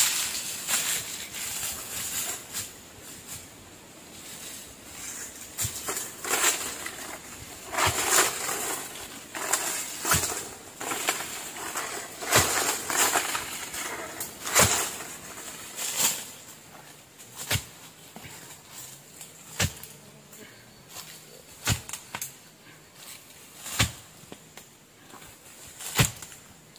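Sharp knocks of wood being struck during shelter building, coming about once every two seconds in the second half, with rustling of brush and branches earlier on. A steady high-pitched drone runs underneath.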